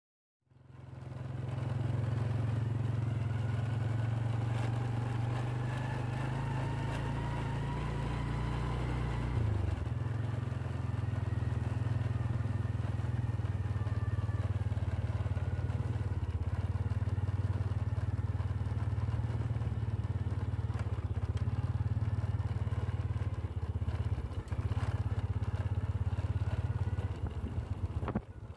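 Motorcycle engine running steadily while riding along a road, its low tone shifting slightly about ten seconds in.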